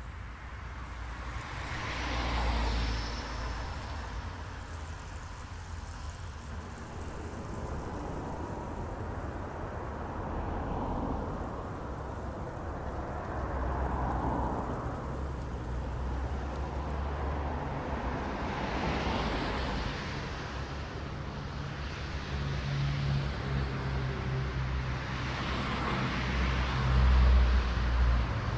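Road traffic: cars passing one after another, each one swelling in and fading away over a few seconds. The loudest pass is near the end.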